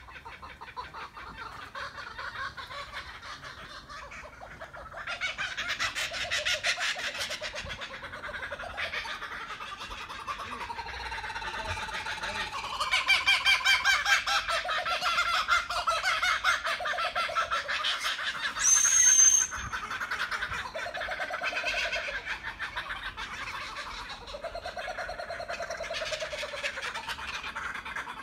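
A group of laughing kookaburras calling together, their rapid chuckling notes swelling into loud bouts and dying back in waves. About two-thirds through, a short, sharp high whistle is the loudest sound.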